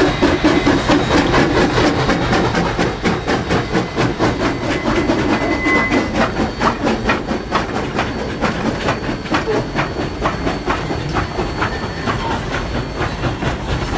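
Two narrow-gauge steam locomotives passing close by, their exhaust beating in a steady rhythm, then wooden passenger coaches rolling past with the wheels clicking over the rail joints.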